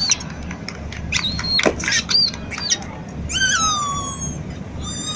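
A string of short, high-pitched comic whistle squeaks, some sliding up and down and some held briefly on one pitch, over a steady crowd and street hubbub.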